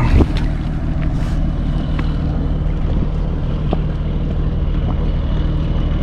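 Engine of a small pleasure boat chugging steadily as it passes, a low even 'tukh-tukh-tukh' beat.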